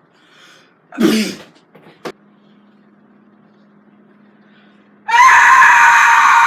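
A man lets out a short grunt, then about five seconds in a loud, held scream of frustration that lasts about two and a half seconds.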